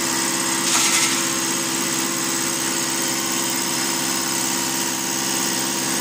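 Diesel fuel injection pump test bench running steadily, driving an electric rotary fuel injection pump, with a steady machine hum and a brief hiss about a second in.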